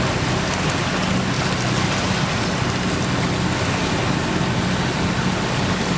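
Sailboat's engine running at a steady hum, with water rushing along the hull.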